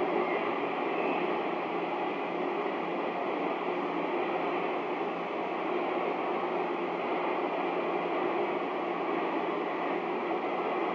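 Cobra CB radio receiving with no one talking: a steady static hiss of band noise from its speaker.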